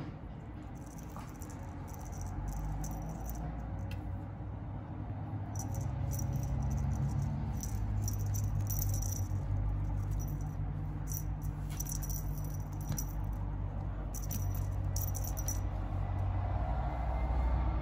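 Hanging toys on a baby bouncer's toy bar rattling and jingling in several bursts of quick clicks as a kitten bats and tugs at them, over a steady low rumble.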